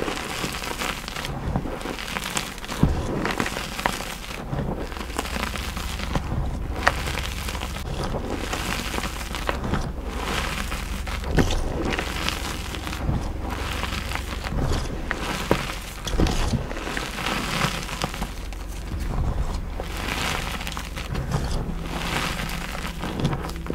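Blocks of gym chalk crunching and crumbling in irregular, crisp cracks, over a low steady hum.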